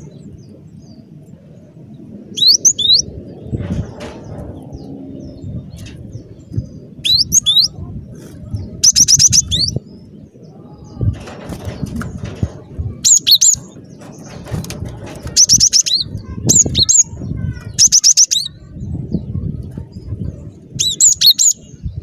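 Cinereous tit singing its repeated song: short bursts of sharp, high-pitched notes every couple of seconds. A low rumbling noise runs underneath.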